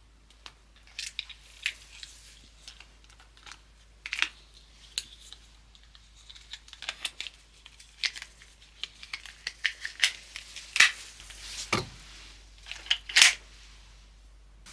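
Irregular clicks, taps and short scraping or rustling sounds of something being handled close by, with no steady firing rhythm.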